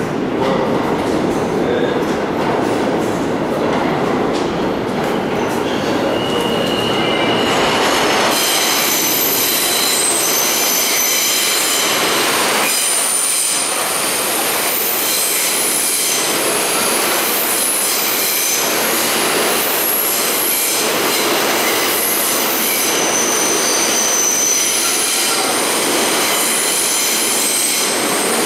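R160 subway train rumbling toward the station through the tunnel, then, from about eight seconds in, entering the platform with many high, steady squealing tones over the rumble of its wheels.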